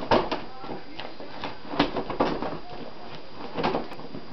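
A Shetland sheepdog playing with a large ball on a carpeted floor: a handful of irregular knocks and scuffles as the ball is nosed and pushed about.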